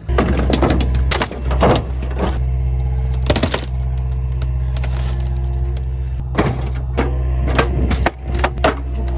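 Excavator's diesel engine running steadily while its bucket pulls apart and drags broken wooden lumber, with sharp cracks, knocks and clattering boards, several in the first two seconds and another cluster near the end.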